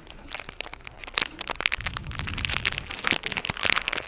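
Crunchy edible larvae being chewed close to the microphone: a dense run of sharp, crisp crackling clicks.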